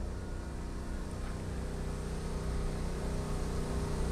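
Electric seat-tilt actuator of a Magic Mobility Extreme X8 power chair running steadily, a low motor hum, as the tilted seat is brought back toward upright.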